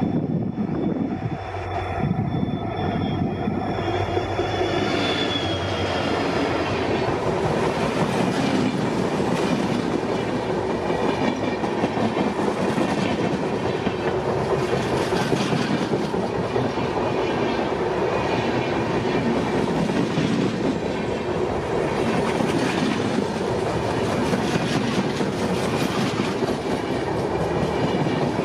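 Train wheels running over the rails, clattering at the rail joints over a steady rumble. A thin high squeal sounds in the first few seconds and fades away.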